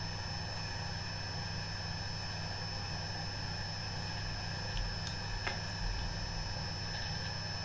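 Electric potter's wheel running with a steady hum and a thin high whine while wet clay is pulled up on the spinning wheel head. A few soft wet knocks of hands on the clay come about five seconds in.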